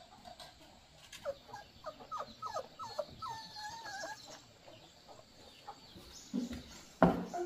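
Puppy whimpering: a run of short, high whines over about three seconds. Near the end comes a loud knock.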